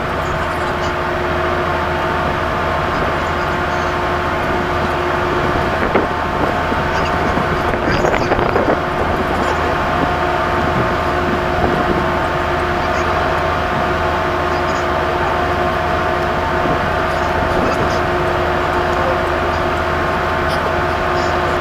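Steady drone of a ship's running machinery, a constant hum of several held tones over a noisy rumble, with a brief clatter about eight seconds in.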